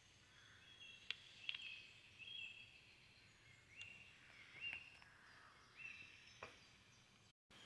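Faint chirping from the squirrel video playing on the phone's small speaker: short high notes repeated every second or so, with a few sharp clicks in between.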